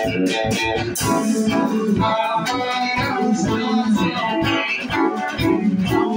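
Live band playing: electric guitars over a drum kit, with a steady beat.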